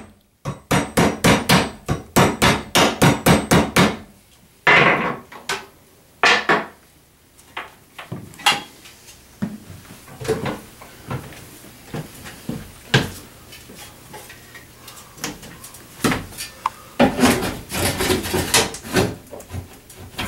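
Hammer tapping the bathroom fan motor's metal mounting plate down so the motor clears the top of the housing: a quick run of about four blows a second for a few seconds, then a few scattered knocks, then another short flurry of blows near the end.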